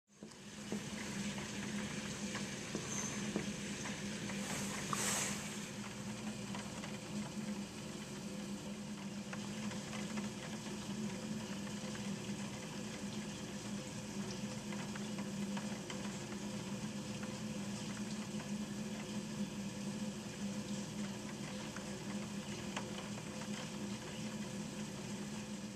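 Steady rain falling, a continuous hiss full of small pattering ticks, over a steady low hum. A brief louder hiss comes about five seconds in.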